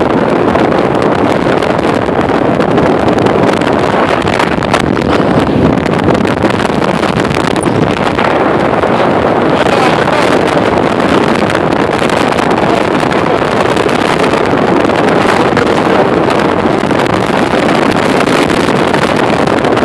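Wind buffeting the microphone on a Formula powerboat running fast, a loud steady rush with the boat's engine and water streaming past the hull underneath.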